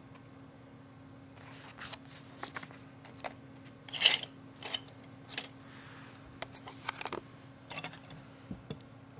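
Plastic kit parts on their runners and a paper instruction sheet being handled: irregular rustles and light plastic clicks, the loudest about four seconds in.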